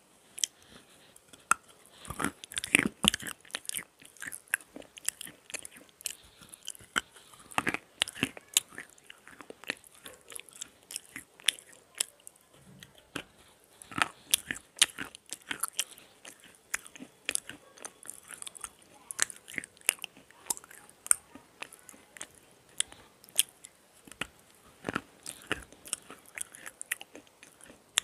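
Black slate pencils being bitten and chewed close to a clip-on microphone: irregular sharp cracks and gritty crunching, with several louder bites spread through.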